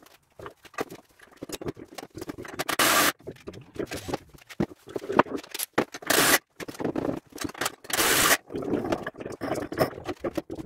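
Hand assembly of a tow-behind tine dethatcher: scattered clicks and knocks of parts being handled, with three loud scrapes of about half a second each.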